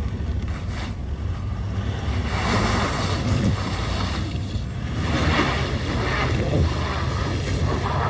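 Wind buffeting the microphone in several gusts over a steady low rumble of an idling vehicle engine.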